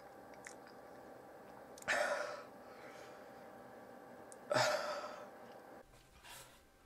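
A man's sharp, pained breaths, sudden gasping sighs twice about two and a half seconds apart and a fainter one near the end, from the burn of chewing extremely hot chili peppers.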